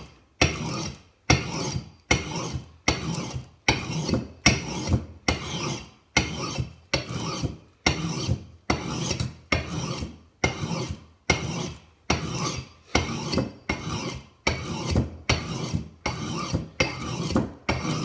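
Oiled sharpening stone scraped along the edge of a blunt axe in steady strokes, a little more than one a second, each stroke starting sharply and fading away.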